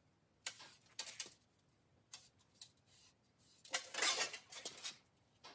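Light scratchy strokes as a marker is drawn around a sheet-metal stove pipe along a zip tie, with small rattles of the thin pipe shifting on the bench. There are a few separate strokes, then a denser, louder run of scraping about four seconds in.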